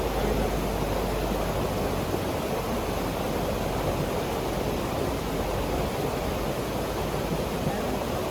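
A steady rushing noise, even in level throughout, with most of its weight in the lower-middle range.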